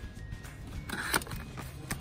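Background music with a steady low pulse. A brief rustle about a second in and a sharp click near the end.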